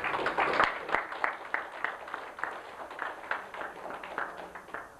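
Audience applauding, starting suddenly and loudest in the first second, then thinning to scattered separate claps that die out near the end.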